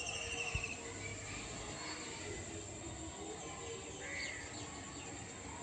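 Outdoor ambience with birds calling: a short rapid trill right at the start and a brief chirp about four seconds in.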